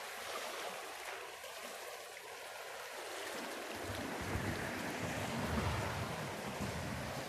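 Fast-flowing river floodwater rushing and swirling around bridge piers, a steady noisy wash, with a low rumble joining about halfway through.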